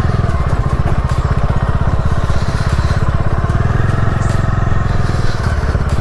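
Bajaj Dominar 400's single-cylinder engine running steadily at low speed under light load, with a fast, even firing pulse, as the motorcycle rides over a rough, stony dirt track.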